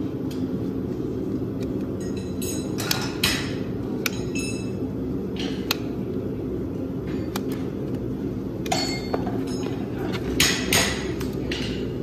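Hoof nippers cutting through the wall of an overgrown horse hoof: irregular sharp snaps, several with a brief metallic ring, the loudest near the end. A steady low hum runs underneath.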